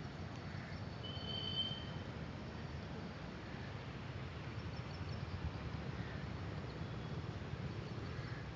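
Outdoor ambience: a steady low rumble with a few faint, short bird chirps, one pair about a second in and more around five seconds in.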